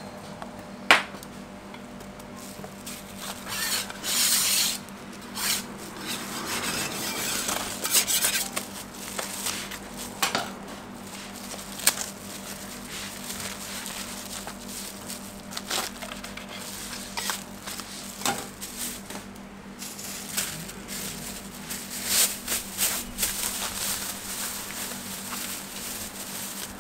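Utensils scraping and clicking against a flat round jianbing griddle while a crepe is sauced, folded and rolled. There are several sharp knocks and stretches of rubbing and rustling, with louder plastic-bag rustling near the end, all over a steady low hum.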